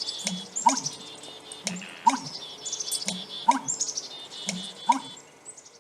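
American bittern's booming call: four low, gulping 'pump-er-lunk' notes in a series, about one and a half seconds apart. The call is the male's mating-season boom. Other small birds chirp high above it.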